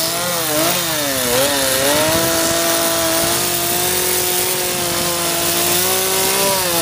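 Chainsaw running at high revs while carving a wooden log, its pitch dipping and recovering several times in the first two seconds, then holding steady.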